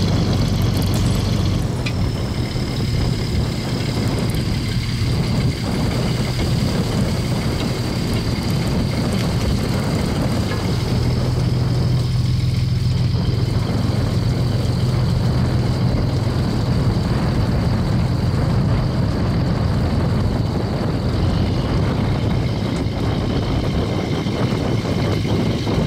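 Fishing boat's engine running steadily, with a thin high whine of machinery over the wash of the sea and water splashing off the hauled net.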